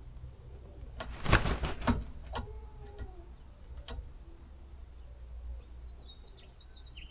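Rooster's feathers rustling in a short flurry about a second in, then a soft, low chicken call with a gliding pitch. Faint chirps of small birds near the end.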